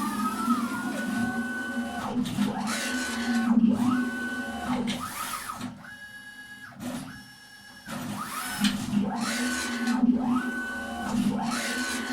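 CNC machine's X and Y axis drive motors making rapid traverse moves in a speed test at about 19 m/min. Each move gives a whine that rises in pitch as the axis accelerates, holds steady, then falls as it brakes, repeated back and forth, with a brief lull a little past the middle.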